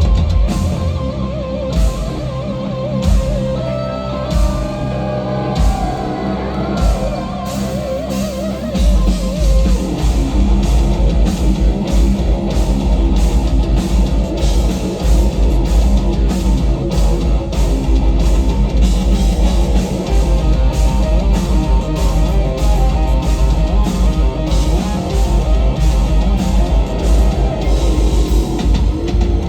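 Live instrumental heavy metal: a lead electric guitar plays melodic runs and bends over bass and drums. About nine seconds in the band comes in heavier and denser, and it carries on at full volume to the end.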